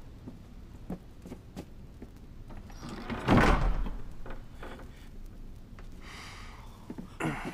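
Heavy wooden door being pushed open: a loud rough sliding rumble a little over three seconds in, then a shorter creak and a few sharp knocks near the end.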